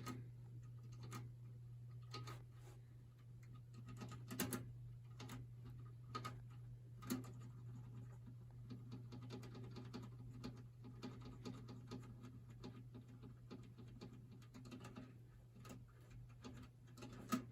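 Faint, irregular clicks of a computer mouse and keyboard being worked, over a steady low hum, with one sharper click near the end.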